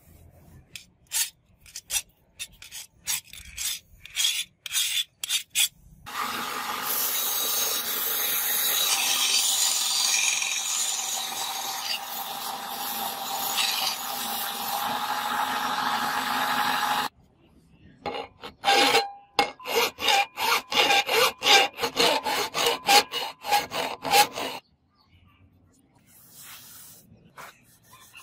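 Quick, repeated rubbing strokes on a steel blade, then a belt sander grinding the blade: a steady noise over a low motor hum for about eleven seconds that cuts off abruptly. More fast rubbing strokes follow for several seconds.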